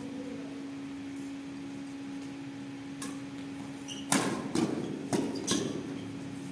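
Badminton rackets striking a shuttlecock during a doubles rally. One faint hit comes about three seconds in, then a fast exchange of four sharp hits about half a second apart, echoing in the hall, all over a steady low hum.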